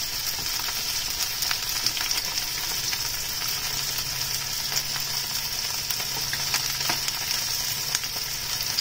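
Flour-coated cod pieces pan-frying in oil in a nonstick frying pan: a steady sizzle with scattered crackles, as the pieces are turned with chopsticks.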